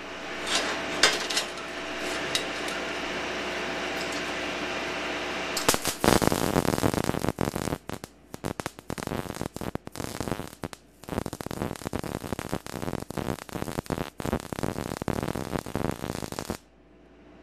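MIG welder arc crackling and sputtering in several runs with short breaks, welding a steel strap cap into the end of 2" x 2" steel square tubing, then cutting off sharply near the end. For the first six seconds there is only a steady hum with a few sharp clicks before the arc strikes.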